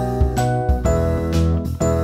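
Background music: a light, tinkly tune of sustained pitched notes over a bass line, with a regular beat.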